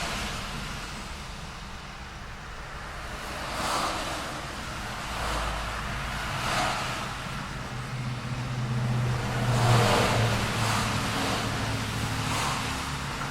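Street traffic: several cars passing one after another, each a swell of tyre noise that rises and fades. Under them runs a low engine hum that peaks about ten seconds in, the loudest moment.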